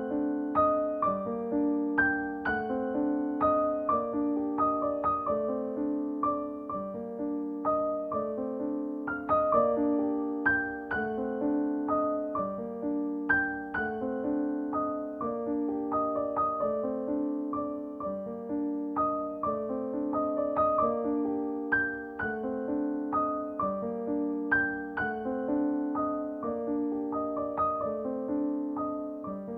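Background piano music: a gentle, even stream of notes.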